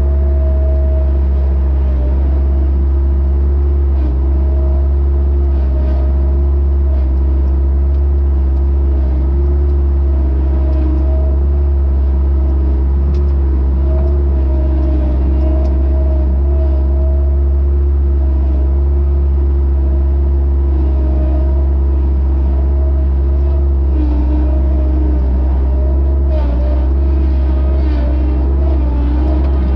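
Engine of a compact loader running steadily while it carries a loaded grapple. A deep, constant hum sits under a higher tone that wavers slightly in pitch.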